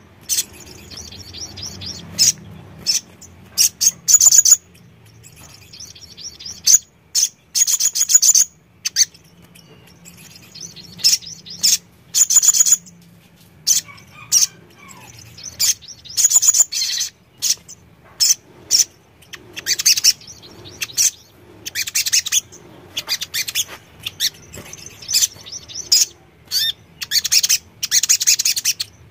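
Caged male sunbird (sogon, sogok ontong) singing in rapid, high-pitched bursts of twittering. There are dozens of short, loud phrases, one every second or so.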